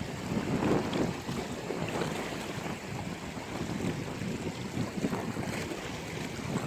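Sea waves washing in and surging against the shore, with wind buffeting the microphone in rough weather.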